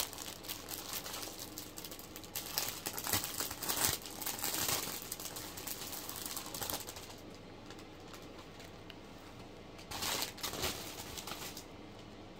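Plastic wrapping crinkling and crackling as a wig is pulled out of its bag, in dense handfuls for the first several seconds, then one more short burst near the end.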